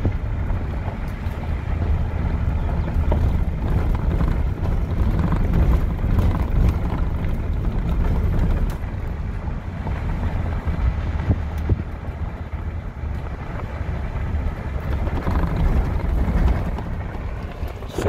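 A vehicle driving along a dirt road: a steady low rumble of engine and tyres, with wind buffeting the phone's microphone through an open window.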